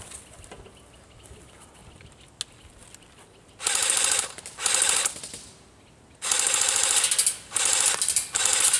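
Airsoft electric guns firing full-auto in five bursts: rapid mechanical rattling of the gearboxes, each burst half a second to over a second long. The first starts about three and a half seconds in, and the last runs to the end.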